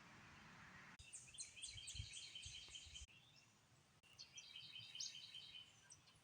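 Faint songbird chirping: two bouts of rapid, evenly repeated high chirps, about four or five a second, with a short pause between them.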